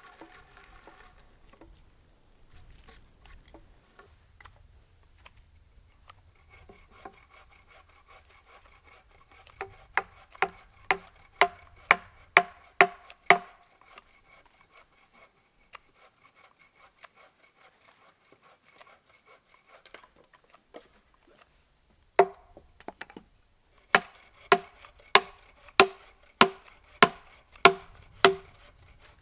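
Two runs of about eight to nine rhythmic blows from a hand tool striking wood, roughly two a second, each with a clear metallic ring.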